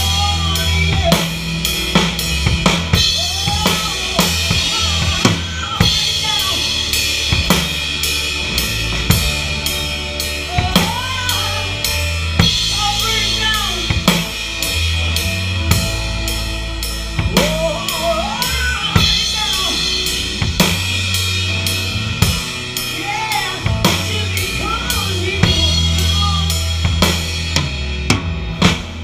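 Live band playing a song, heard from right behind the drum kit: drums with snare, bass drum and Sabian cymbals loudest, over bass and guitar. The cymbals and the band drop away near the end.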